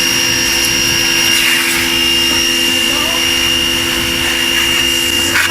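Kawasaki HBP-302 high pressure washer running steadily under load while spraying, a motor-and-pump whine over hissing water; its high whine falls away just before the end.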